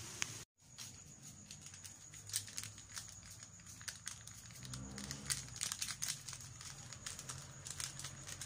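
Plastic instant-noodle seasoning sachets crinkling and rustling as they are handled and emptied over the noodles, with many small irregular crackles.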